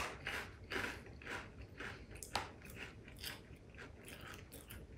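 Wasabi Cheetos being chewed with the mouth close to the microphone: an irregular string of crunches, about two to three a second.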